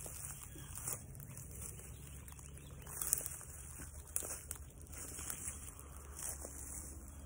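Rustling and crackling of dry grass, weeds and brush as people push through it on foot, with irregular snaps of twigs and stems; the louder crackles come about three and four seconds in.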